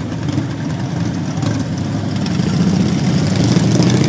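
Motorcycle engines idling steadily, growing a little louder near the end.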